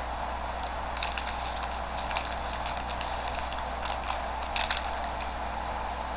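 Trading cards being handled and flicked through by hand: scattered light card-stock clicks and rustles over a steady hiss and low hum.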